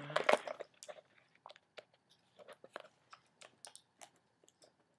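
Hands handling an earphone case and its packaging: scattered small clicks and crackles, busiest in the first half-second.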